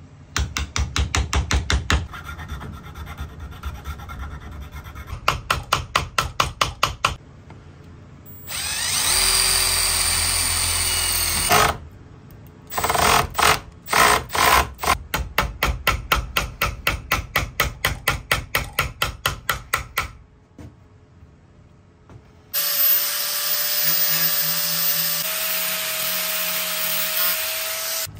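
Hand-tool and power-tool work on a brass axe head and its wooden handle. Runs of quick, even strokes at the handle top alternate with a power drill running steadily for a few seconds. Near the end a small cordless sander runs steadily with a whine that steps up in pitch.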